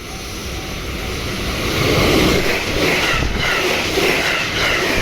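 Meitetsu electric train passing close by at a level crossing, its running noise swelling over the first two seconds and then staying loud, with wheel knocks over the rail joints. The crossing's warning bell rings on in a steady beat of about two strokes a second.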